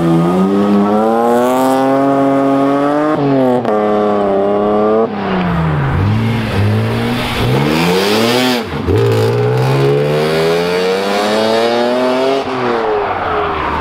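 Car engine revving hard as the car accelerates away. Its pitch climbs and then drops back at each of several gear changes.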